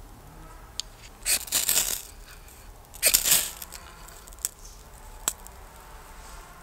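Ferrocerium rod struck with a steel striker over tinder: two short scrapes about a second and a half apart, sending sparks that light the tinder. A few single sharp clicks follow.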